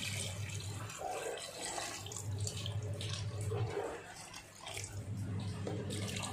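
Water being poured into a pressure cooker of chicken, splashing unevenly, over a steady low hum.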